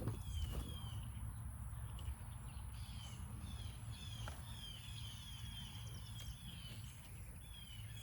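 A bird calling over and over in short falling chirps, about two or three a second, over a steady high-pitched whine and a low outdoor rumble.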